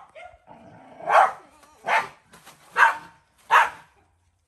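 A dog barking four times, short barks a little under a second apart.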